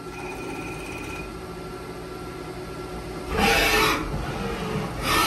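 Haas CNC mill roughing 12L14 steel with a solid carbide end mill at high feed: a steady machining hum with a faint whine, broken twice by short, loud bursts of cutting noise about half a second each, the second near the end.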